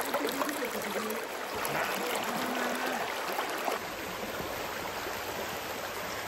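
Shallow, clear mountain stream running steadily over rocks and pebbles, a continuous rushing and gurgling.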